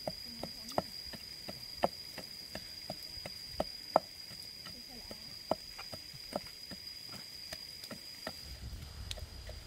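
Wooden pestle pounding chilies and garlic in a wooden mortar: irregular dull knocks, about two a second. A steady high-pitched insect whine runs underneath and stops near the end.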